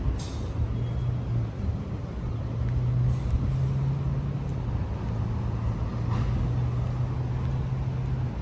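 City street ambience: road traffic rumble with a steady low hum.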